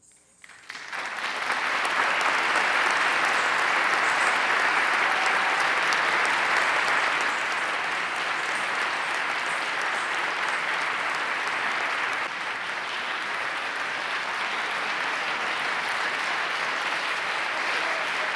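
Audience applauding, rising from silence to full clapping within about two seconds, then continuing steadily.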